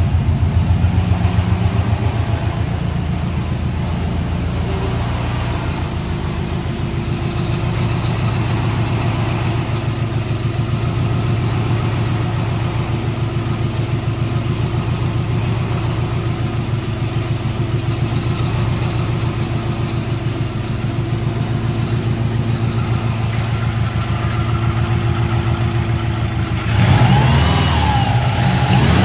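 2004 Subaru Impreza 2.0 L turbocharged flat-four engine idling steadily, heard with the hood open. Near the end the sound grows louder and rougher.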